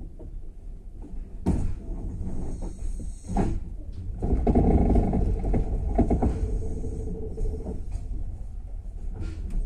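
Passenger train coach rolling along the track, heard from inside the car: a steady low rumble with sharp knocks from the wheels and rattling from the car body, growing louder about four seconds in.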